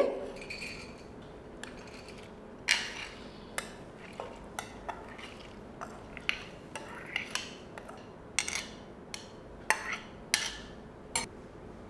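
Steel spoon scraping and clinking against a glass bowl and a pressure cooker while soaked urad dal is spooned into the cooker: irregular short clinks and scrapes, a dozen or more.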